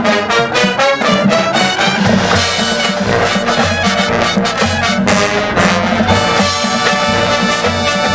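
Marching band playing: brass section sounding full chords over a steady run of drum strikes.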